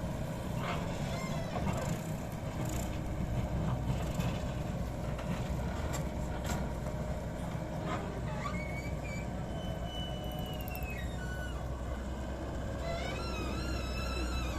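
Excavator's diesel engine running steadily with a low rumble, with a few sharp clicks or knocks. High wavering squeals come in over the second half.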